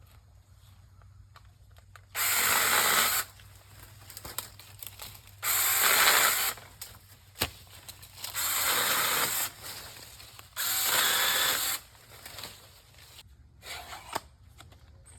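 Earthwise 20V battery-powered mini chainsaw with a 6-inch bar and chain, its electric motor and chain running in four short bursts of about a second each, cutting low branches.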